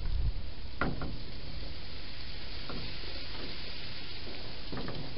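Wild hedgehog chewing food at a bowl inside a plastic feeding box: a few scattered sharp clicks, about one second in, near three seconds and just before the end, over a steady hiss.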